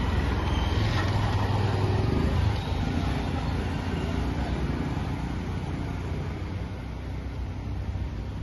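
Motorbikes passing on the road, engines running over a steady traffic rumble; loudest in the first couple of seconds, then easing off.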